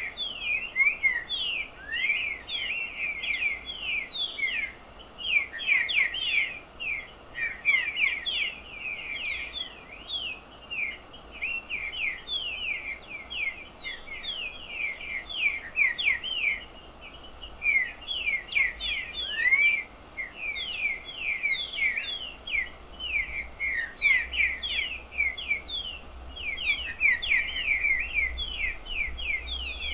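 Picharro songbird singing a long, rapid chatter of short sweeping notes, many a second, with only brief pauses.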